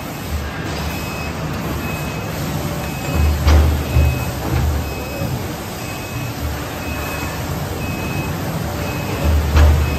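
Automatic hydraulic cutting press cutting foam sheet: a low hum surges and the press closes with a sharp clack twice, once a few seconds in and again near the end. Under it, a short high warning beep repeats about every half-second.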